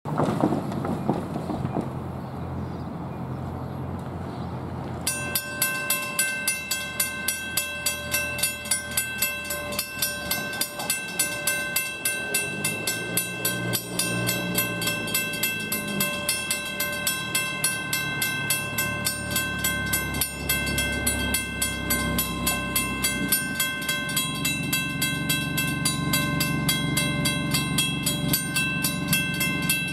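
Railroad grade-crossing warning bell ringing in a fast, even rhythm, starting about five seconds in as the crossing signals activate. A low engine hum builds under it in the last few seconds.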